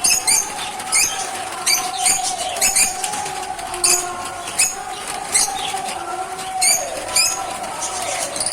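Pet lovebirds chirping: about ten sharp, high, falling chirps at uneven intervals over a steady lower tone.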